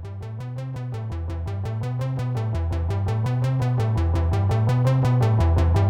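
Electronic synthesizer music fading in: a fast, even pulse of about eight beats a second over a changing bass line, growing steadily louder.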